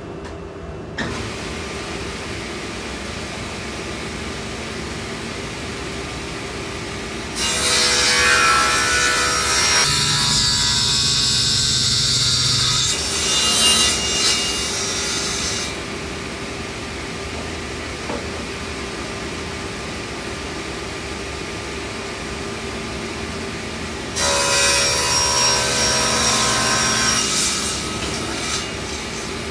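Sliding table saw running, cutting a plywood panel twice. The first cut lasts about eight seconds and the second about four, both much louder than the saw's steady motor hum between them.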